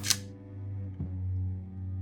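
Background music: a sharp hit at the start, then sustained low notes held steady, with a new note coming in about a second in.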